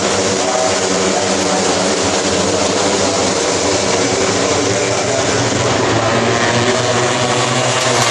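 Several Moto3 racing motorcycles with 250cc single-cylinder four-stroke engines running at high revs together, a loud, steady drone.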